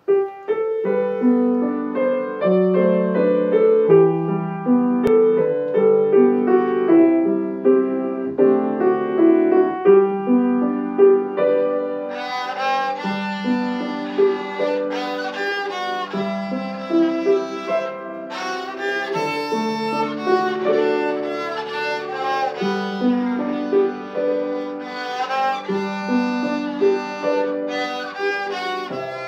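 A violin playing a melody with grand piano accompaniment.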